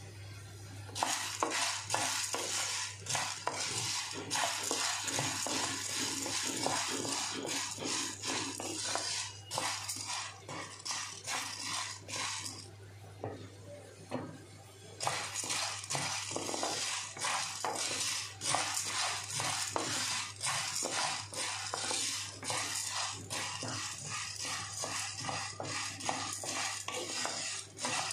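Whole black peppercorns dry-roasting in a metal pan, stirred with a wooden spatula: the dry peppercorns rattle and scrape against the pan in dense runs of quick clicks, with a pause of a couple of seconds about halfway.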